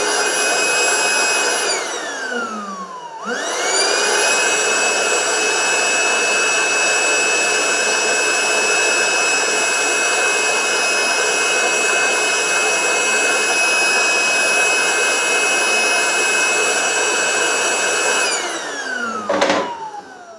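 Small 12-volt electric air pump, wired straight to a battery, blowing air into an inflatable car-seat mattress. Its motor whines up to speed, slows with falling pitch about two seconds in, then spins up again and runs steadily. Near the end it winds down with falling pitch, with one brief spurt before it dies away.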